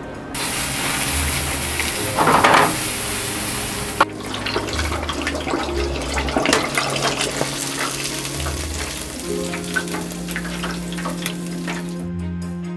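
Food deep-frying in hot oil. There is a steady sizzle for the first few seconds, then a dense crackle of popping bubbles. Background music with sustained low notes plays throughout.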